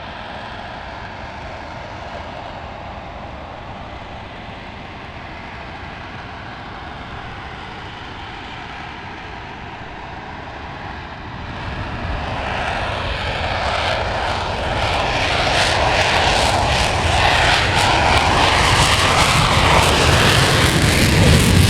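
Saab JAS-39 Gripen's single Volvo RM12 turbofan on a full-afterburner takeoff: a steady jet whine for the first half, then the sound builds louder and louder from about halfway, turning into a crackling afterburner roar by the end.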